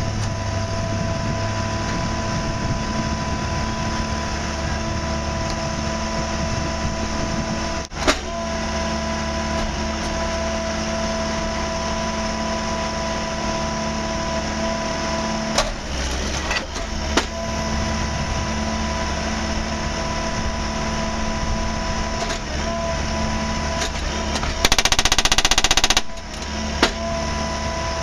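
A railway track maintenance machine running steadily, with a constant whine over its engine noise and a few sharp metallic clanks. Near the end comes a loud burst of rapid hammering that lasts about a second and a half.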